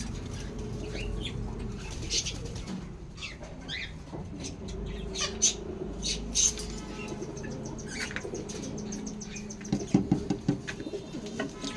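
Small aviary birds chirping in short, scattered calls, with wing flutters and a quick run of sharp flaps near the end.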